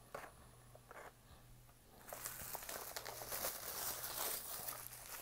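A couple of light plastic clicks as a boxed model in a clear case is handled, then about three seconds of plastic packaging crinkling and crackling as the next diecast car is unwrapped.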